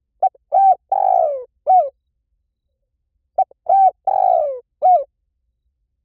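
Spotted dove cooing: two identical song phrases about three and a half seconds apart, each a short note, an arched coo, a longer coo that slides down in pitch, and a final arched coo.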